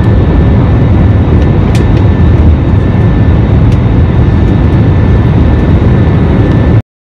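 Airliner cabin noise while climbing after takeoff: engines and airflow make a loud, steady low rush with faint high steady whine tones over it. It cuts off suddenly near the end.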